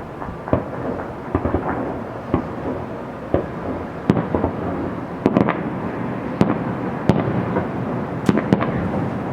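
Fireworks salute: about a dozen sharp bangs at irregular intervals over a steady rumble of bursts.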